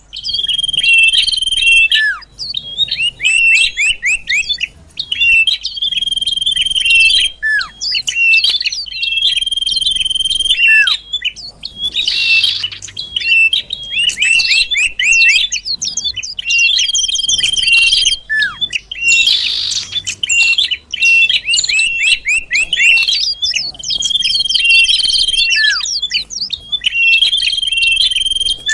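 Common iora (cipoh) song used as a bird-trapping lure call: a repeating phrase of a held high whistle with rapid chirps over it and a short falling slur, recurring every two to three seconds.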